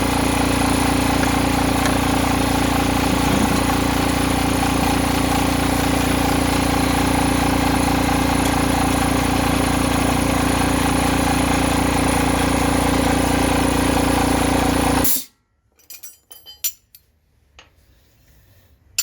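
A workshop machine's motor hums steadily at one fixed pitch, then switches off abruptly about fifteen seconds in. A few light clicks follow.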